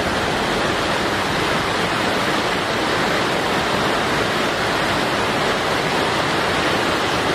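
Steady, unbroken rush of a waterfall's falling water.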